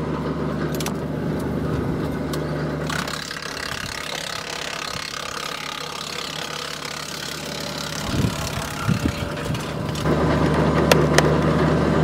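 Tractor PTO-driven wood chipper chipping a single test branch: sharp snaps for the first few seconds, then a long rushing hiss of chipping over the steady drone of the tractor engine and flywheel, which comes back to the fore near the end.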